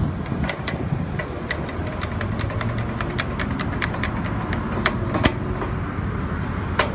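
Street traffic at a signalled intersection: vehicle engines idling in a steady low rumble, with a run of sharp ticking clicks at uneven spacing, a couple of louder ones about five seconds in.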